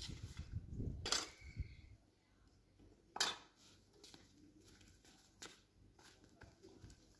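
A few sharp knocks and clinks from a metal tray of dishes as it is carried and set down on a floor rug, the loudest about three seconds in.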